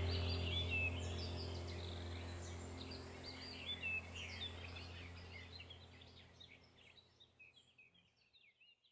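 Background soundtrack of birdsong, many short chirps over a low steady drone, fading out gradually until it is gone near the end.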